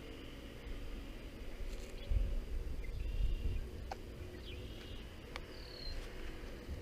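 Quiet outdoor ambience: low wind rumble on the microphone with a few faint, short high chirps and a couple of light clicks.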